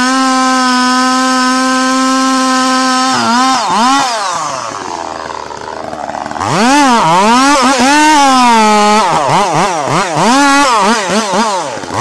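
Large two-stroke chainsaw with a long bar cutting into a giant tree trunk. The engine holds a steady high pitch for about three seconds, eases off briefly, then its speed rises and falls again and again, dipping and climbing in pitch, until it drops back near the end.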